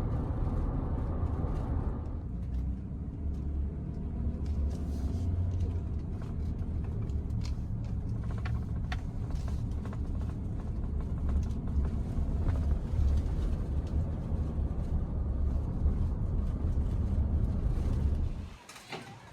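Steady low rumble with a few faint clicks, cutting off suddenly near the end.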